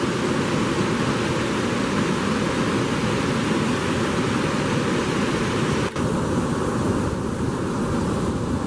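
Steady rush of floodwater from a reservoir overflowing its spillway, an even noise that is briefly cut about six seconds in.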